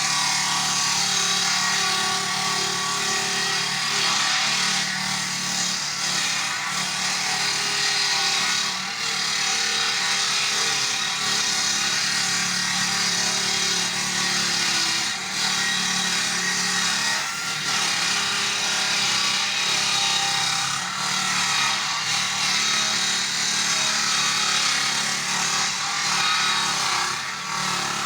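Chainsaw running under load as it cuts through wood, a steady engine note with a few brief dips in level.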